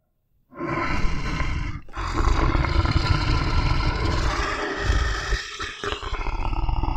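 Tiger roaring sound effect: long roars starting about half a second in, with short breaks about two seconds in and again near five and a half seconds.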